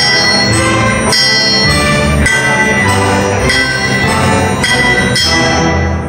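Full symphony orchestra playing, with a blacksmith's anvil struck as percussion on the beat about every half second, each hit ringing like a bell. The music stops near the end.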